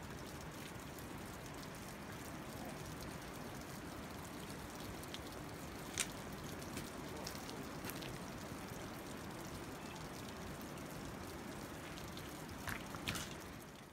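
Meltwater trickling and dripping from melting glacier ice, a steady faint rushing, with a sharp click about six seconds in and a few more near the end.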